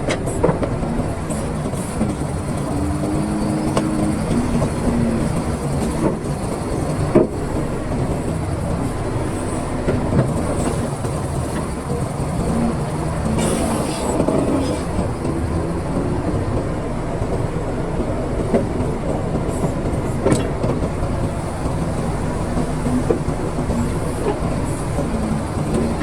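Excavator at work: its diesel engine running steadily, with metallic clanking and a few sharp knocks.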